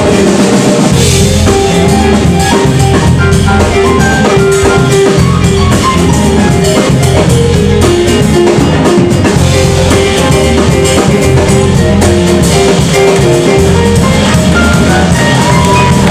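Live band playing loudly with congas, drum kit, electric guitars, bass guitar and keyboard, keeping a steady groove with held melody notes over it.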